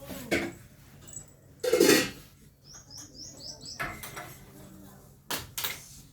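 A cat eating, with short noisy bursts and clicks. A small bird chirps five quick falling notes about three seconds in.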